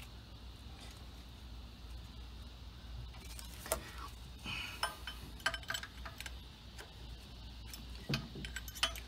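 A wrench clinking and tapping against metal engine fittings: a few scattered light metallic clinks, starting a little over a third of the way in and bunching again near the end, over a faint low hum.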